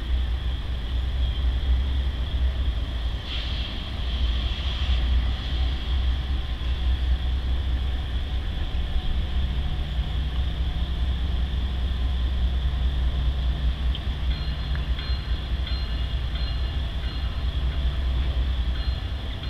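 Norfolk Southern freight train rolling slowly past with a steady, heavy low rumble. Faint clicks and squeaks come in over the last few seconds.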